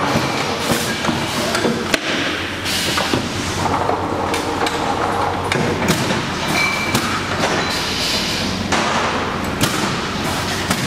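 Sparkling-wine disgorging machine running: a steady hum under repeated clattering knocks of the mechanism and glass bottles, with several short bursts of hissing.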